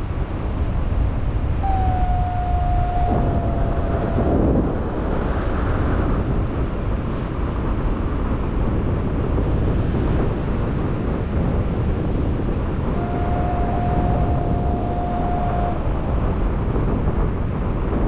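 Strong wind buffeting the microphone of a paraglider in flight, a steady heavy rumble. Twice a long steady tone sounds over it for about three seconds, the first about two seconds in, the second about thirteen seconds in.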